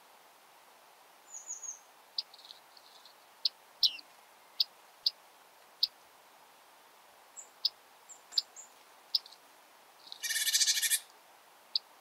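Bearded reedlings calling: about a dozen short, sharp, high call notes scattered through, with one harsher buzzy call lasting just under a second about ten seconds in.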